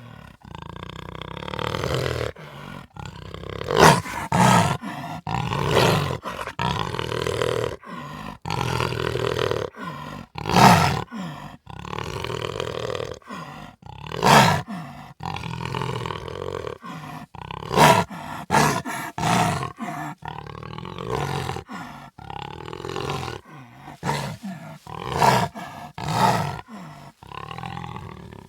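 Jaguar growling and roaring in a long run of rough, grunting calls, a loud call every one to two seconds with a rumbling growl between them.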